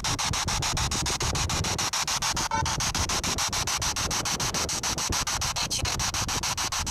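SB7 spirit box sweeping through radio stations: a steady static hiss chopped into rapid, even pulses many times a second, with a brief snatch of pitched sound about two and a half seconds in.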